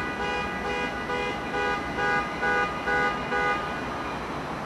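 A railroad warning signal sounding in even pulses, about two a second, for nearly four seconds, then stopping.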